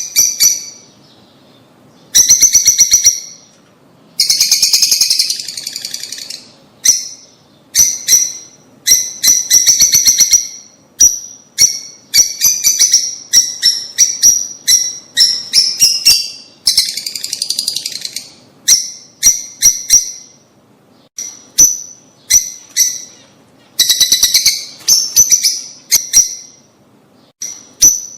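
Lovebirds chirping: loud, shrill, high calls given in quick bursts and rapid runs of chatter, with brief pauses between them.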